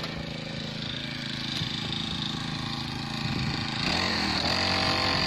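Small air-cooled four-stroke engine of a Takyo TKGX-35 wheeled push brush cutter running steadily, then growing louder and higher about four seconds in as it is revved.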